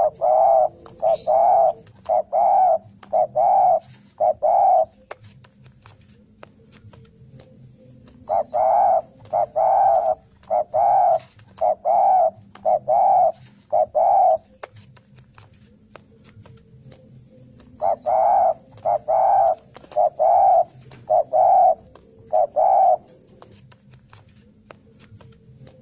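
Spotted dove cooing its repeated territorial challenge call ('narung'), the call it gives seeking a rival. The cooing comes in three bouts of about six to eight evenly spaced notes each, with a few seconds' pause between bouts.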